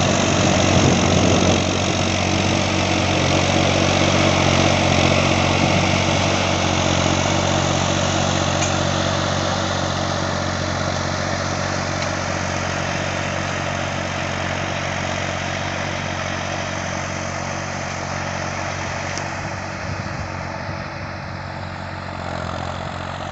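Valtra A950 tractor's diesel engine running steadily while pulling a 14-disc intermediate disc harrow through the soil. It is loudest as it passes close, then slowly fades as the tractor moves away.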